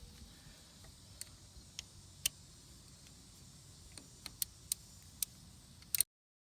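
Scattered sharp metallic clicks from a small 3/8-inch drive ratchet working a brake caliper bolt, a few single clicks then a quick cluster of them, before the sound cuts off completely near the end.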